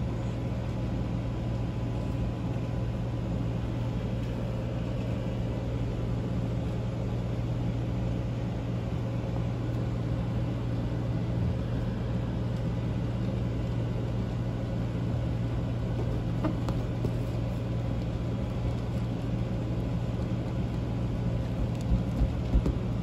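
Steady low mechanical hum with a faint constant whine above it, unchanging throughout. A few soft thumps come near the end.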